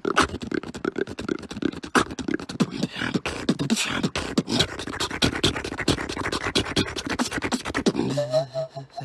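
Human beatboxing: a fast, dense run of mouth-made clicks and snares over a steady bass line, with a held pitched tone near the end.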